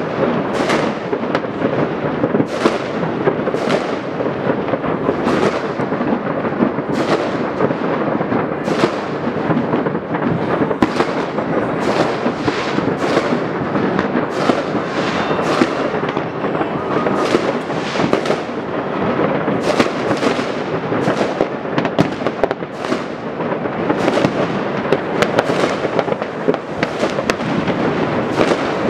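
Mass New Year fireworks and firecrackers going off all over at once: a continuous crackling wash of bangs, with sharper, louder reports every half second to a second.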